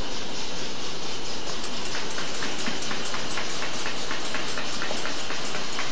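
Paper cup sleeve folding and gluing machine running: a steady mechanical noise with a fast, regular clicking.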